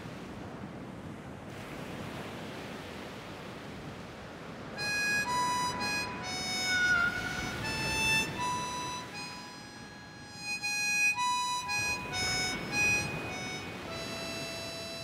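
Surf washing on a beach, and from about five seconds in a slow instrumental melody of long held notes, the opening of the song, plays over it; the melody stops a couple of seconds before the end, leaving the surf.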